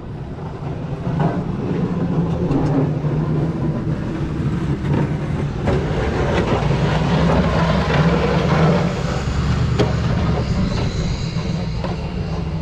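Bobcat skid-steer loader's diesel engine running steadily, with metallic clanking and rattling over the drone.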